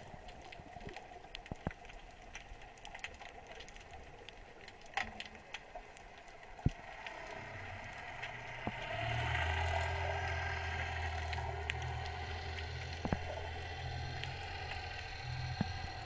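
Underwater sound: scattered sharp clicks and crackles, then about seven seconds in a low, steady motor hum comes in, growing louder around nine seconds and holding on.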